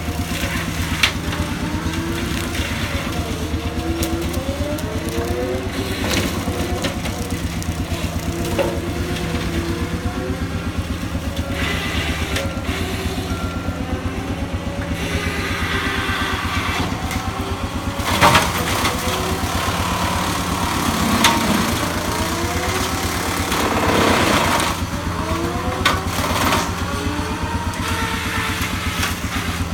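Skid steer engine running steadily under hydraulic load, with a whine that rises and falls in pitch again and again. Louder crunching bursts come about 18, 21 and 24 seconds in.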